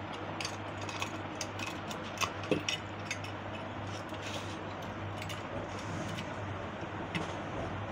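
Small metal clicks and taps, scattered throughout, as the parts of an electric iron's thermostat and soleplate are handled and fitted together, over a steady low hum.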